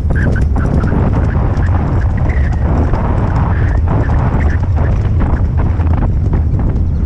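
Hoofbeats of a ridden horse moving over grassy ground, a steady run of knocks, under a heavy rumble of wind on the microphone.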